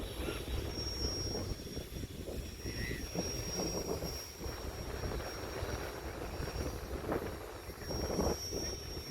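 Wind rumbling on the microphone over ocean surf, with a faint steady high-pitched whine.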